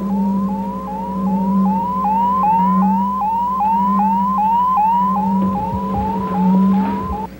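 Cybermat sound effect: an electronic chirp that rises in pitch and repeats about three times a second, over a low electronic hum that swells and fades about once a second.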